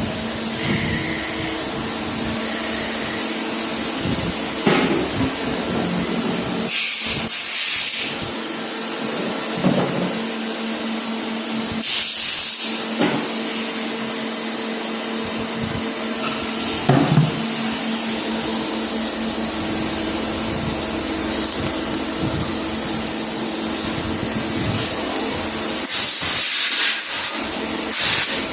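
CNC automatic machine running with a steady hum and high whine, broken by short hissing blasts about 7, 12 and 26 seconds in.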